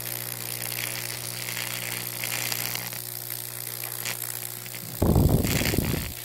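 High-voltage fractal burn arcing across a wet wooden dowel: a steady electrical hum with crackling and sizzling as the current burns into the wood. About five seconds in, a louder low burst of noise lasts about a second.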